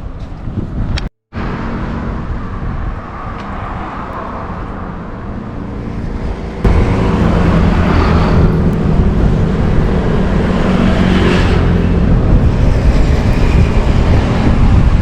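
Outdoor motor-vehicle traffic noise with a rumbling wash of air. The sound drops out for a split second about a second in. From about six and a half seconds it turns suddenly louder, with a steady low engine hum.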